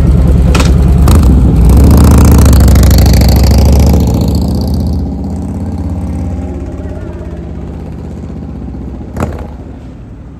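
Harley-Davidson touring motorcycle's V-twin engine, loud as the bike pulls away, swelling for a few seconds, then fading steadily as it rides off.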